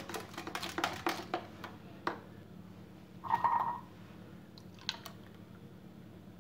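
Quiet clicks and taps from kitchenware being handled: a quick run of them at the start, single ones later, and a short pitched scrape about three seconds in.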